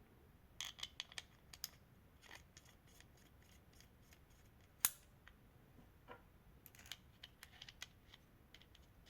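Faint small metallic clicks and ticks of a hand rivet nut tool's parts being handled as its threaded mandrel is unscrewed and changed, with one sharper click near the middle.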